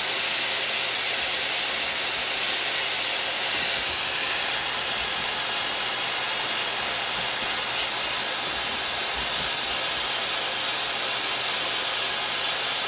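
Miele S318i canister vacuum running, sucking air through a small brush-tipped micro attachment as it brushes dust off Lego bricks: a steady, even, high hiss.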